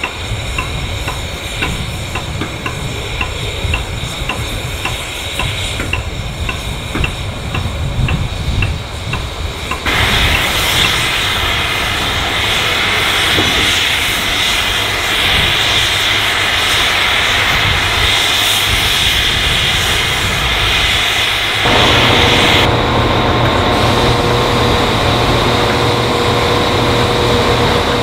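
Rebuilt Bulleid West Country Pacific steam locomotive standing with steam hissing steadily. It starts as a low rumble with a faint regular ticking about twice a second, turns suddenly into a loud hiss, and near the end becomes a lower steady hum with a held tone.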